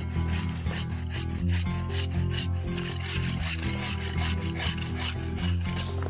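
Hand bow saw cutting through a small conifer's trunk in quick, rasping back-and-forth strokes, several a second. Steady low background music runs underneath.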